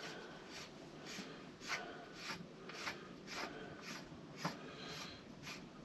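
Short rasping strokes, roughly one every half second to second, as the washer and rear axle nut are run down onto the KTM Super Duke 1290's rear axle.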